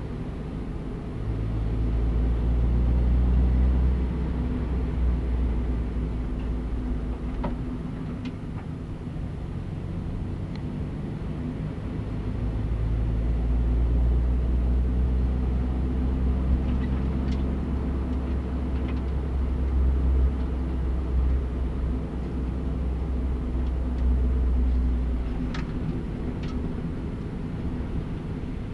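Inside the cabin of a Honda Civic Type R EP3: its four-cylinder engine and tyres drone at low revs as the car runs at about 50 km/h. The low rumble swells about a second in and again from about halfway until near the end, easing off in between, with a few faint ticks over it.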